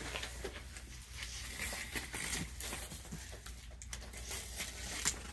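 Box cutter slicing through packing tape and cardboard on a large carton, an uneven run of short scratchy cuts and rustles, with one sharper tap near the end.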